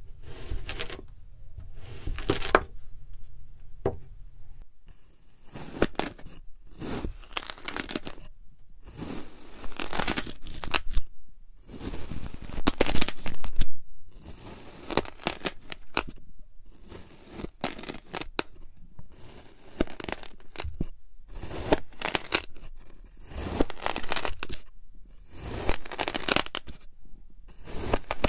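A knife blade slicing through packed kinetic sand again and again, each cut a short gritty crunching scrape, with many separate cuts about one every second or so.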